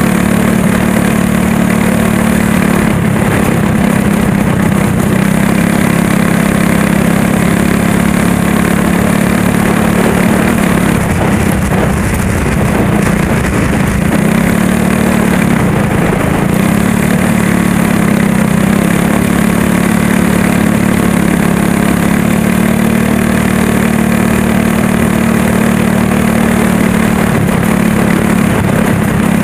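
Go-kart's small engine running hard and steadily, heard from on board the kart. Its pitch dips and wavers briefly a few times around the middle, as the throttle eases.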